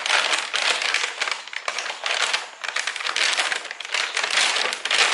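Plastic packaging crinkling and crackling as a courier bag and clear plastic wrap are cut with a blade and pulled open, in loud surges of rustling.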